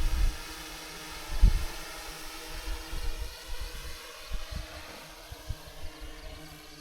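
Wind gusting against the microphone in uneven low rumbles, the strongest about a second and a half in, over a faint steady hum.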